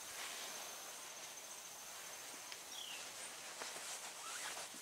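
Faint soft rubbing of a dry tack cloth wiped by hand over sanded car paint, taking off dust before clear coat. Behind it a thin steady high tone and a short falling chirp that comes back about every two and a half seconds.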